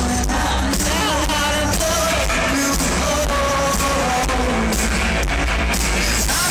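Live rock band playing, with a man singing over drums and guitars.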